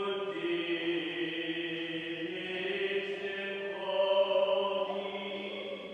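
Choir singing Latin plainchant in long, held notes that step to a new pitch a couple of times, the higher one about four seconds in.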